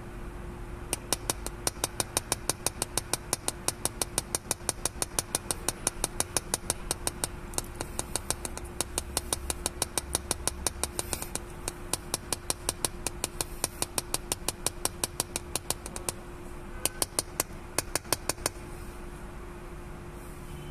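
Rapid, evenly paced clicking, about four to five clicks a second, from the resin injector of a windscreen crack repair bridge being turned by hand; the clicking pauses briefly near the end, then resumes for a few more clicks. A steady low hum runs underneath.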